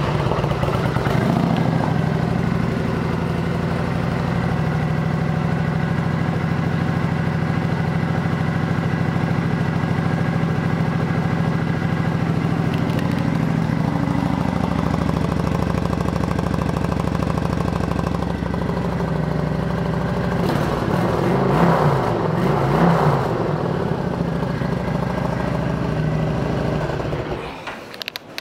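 2016 Kawasaki Vulcan 900 Custom's V-twin engine idling steadily just after starting, revved briefly twice about three-quarters of the way through, then switched off just before the end.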